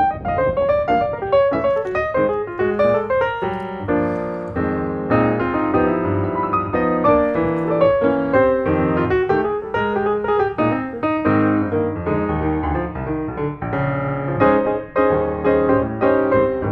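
Background music: a piano piece playing a steady run of notes over a bass line.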